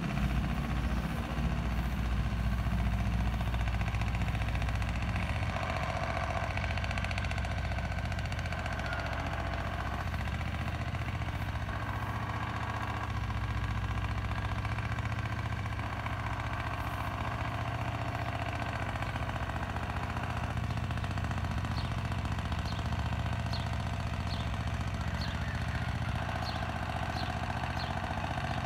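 A steady low mechanical hum, like an engine running. In the last seven seconds or so a bird chirps over it in short, high, repeated notes.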